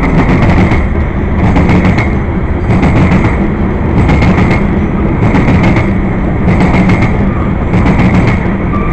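Freight cars of a CSX grain train rolling past at speed: a loud, steady rumble with clusters of sharp wheel clicks about once a second as the trucks pass over the rail.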